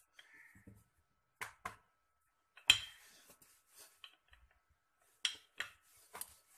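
Wooden rolling pin knocking against a marble slab while dough is rolled out into a round: a few short, sharp knocks spaced irregularly, the loudest about two and a half seconds in.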